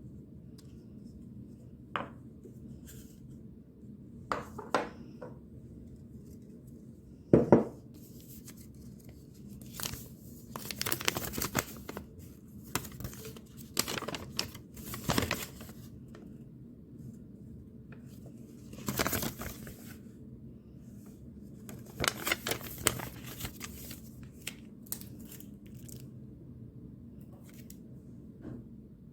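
Handling noises: bouts of scraping and rustling, with several sharp knocks in the first few seconds, over a steady low hum.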